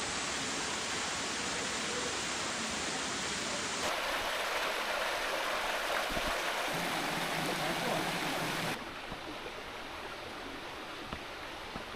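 Waterfall water rushing and splashing as a steady roar. It changes abruptly in loudness and tone twice, about four and nine seconds in.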